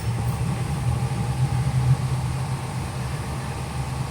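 Maxum 2700 SCR motor cruiser's engine running steadily just after starting: an even, low hum with no change in speed.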